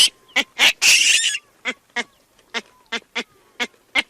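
Baboon calls: a run of short, sharp grunting barks, about three a second, with a harsh scream about a second in.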